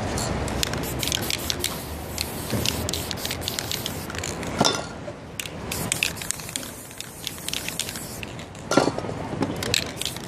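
Aerosol spray paint can hissing as paint is sprayed onto poster board, with many short clicks throughout and two louder knocks, about halfway and near the end.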